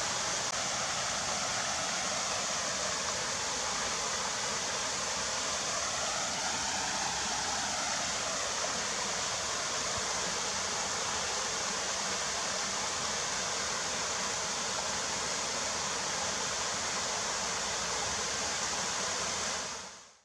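Steady rushing noise, like running water, with faint slow-gliding tones underneath; it fades out at the very end.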